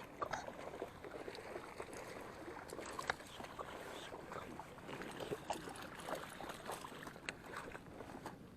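Irregular rustling and scraping with many small clicks and a few sharper taps close to the microphone.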